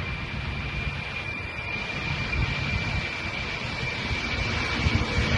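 Jet airliner engines running: a steady high-pitched whine over a low rumble, fading out near the end.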